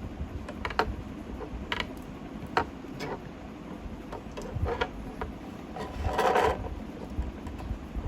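Small mechanical clicks and taps from handling the parts of a graphics card, with a louder scrape or rustle about six seconds in.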